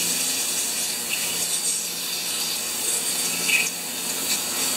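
Aerosol carburetor cleaner spraying onto a small-engine carburetor in a steady hiss.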